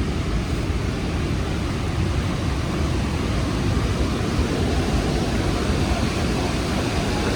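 The Rhine Falls waterfall: a steady, loud rush of falling water, deepest and strongest in the low rumble.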